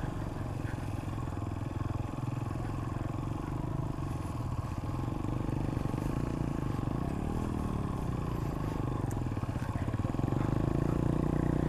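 Suzuki GR150's single-cylinder four-stroke engine running steadily under load while the motorcycle rides through loose sand, with a brief dip and rise in engine pitch a little past the middle.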